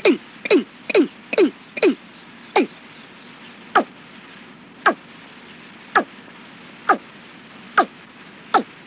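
Recorded calls of a watercock (cúm núm), a series of short notes, each falling steeply in pitch. They come about two a second at first and slow to about one a second from about two seconds in. It is a call recording of the kind played at night to lure the bird.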